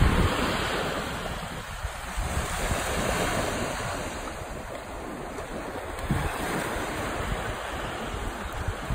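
Small ocean waves washing up the beach, with wind buffeting the microphone.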